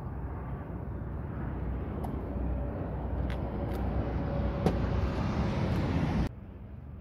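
Outdoor road-traffic rumble that grows louder, with a few light clicks, cutting off abruptly near the end.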